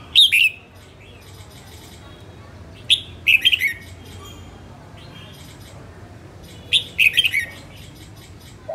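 Red-whiskered bulbul singing three short, bright phrases of a few quick falling notes each, a few seconds apart. The first and loudest phrase comes with a flutter of wings as the bird lands on its perch.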